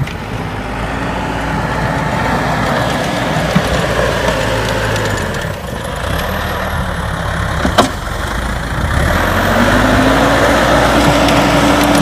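Diesel engine of a Caterpillar backhoe loader running under load as it pushes snow with its front bucket. It revs up and grows louder about nine seconds in. A sharp click is heard near the eight-second mark.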